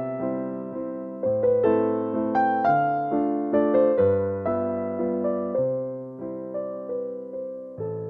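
Background music: a slow, gentle piano piece, with notes and chords struck one after another, each ringing and fading away.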